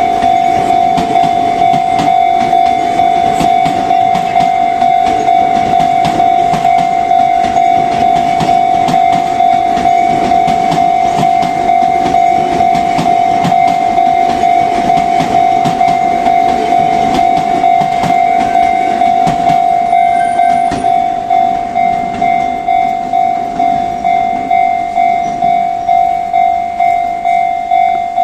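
Level crossing alarm ringing in a steady pulsing beat while a Sotetsu 20000 series electric train runs over the crossing, its wheels clacking over the rail joints. The train noise fades about twenty seconds in and the alarm keeps ringing.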